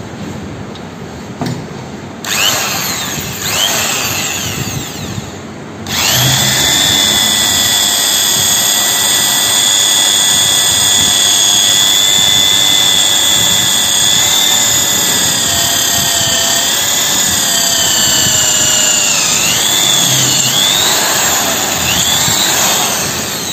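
Buildskill electric pistol-grip drill boring a hole through an aluminium disc held in a bench vise. A couple of short trigger bursts first, then from about six seconds in a steady high motor whine. The pitch sags briefly around twenty seconds in as the bit bites, and the drill winds down near the end.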